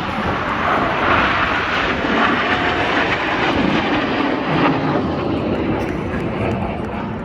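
Airplane engine noise from an aircraft flying past, a loud steady rush that eases slightly near the end.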